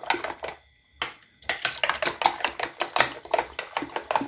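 Metal spoon beating an egg mixture in a ceramic bowl: rapid clicks of the spoon against the bowl, about five a second. The clicking pauses for about a second shortly after it starts, then resumes.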